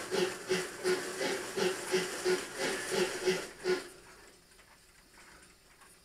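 Model steam locomotive sound box playing steam chuffing for an N gauge train, about three chuffs a second with hiss, fading away about four seconds in.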